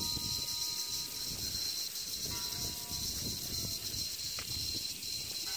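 Steady high-pitched buzz of insects, over a low rumble of wind on the microphone.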